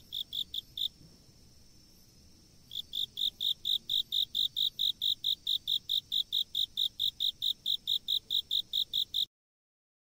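Nature recording of autumn insects singing: a chirp repeating evenly about four or five times a second, with a fainter steady high trill behind it. The chirping stops for about two seconds shortly after the start, resumes, and the recording cuts off suddenly near the end.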